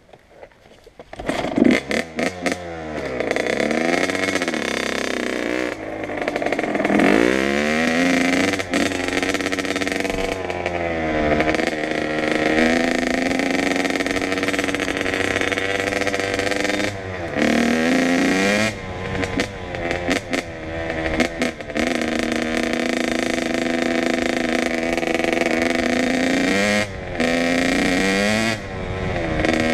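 Kawasaki KX100's 100 cc two-stroke single engine starting up about a second and a half in. It then revs, rising and falling in pitch as the bike pulls away and accelerates through the gears, with a few brief drops when the throttle is rolled off.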